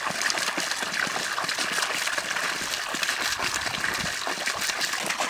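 Water pouring steadily from the end of a hose pipe, a continuous gushing splash.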